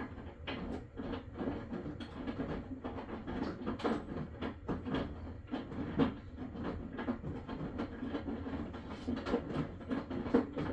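Maytag washing machine running: a steady hum under rapid, irregular clacking and knocking, several knocks a second. It cuts off suddenly at the very end.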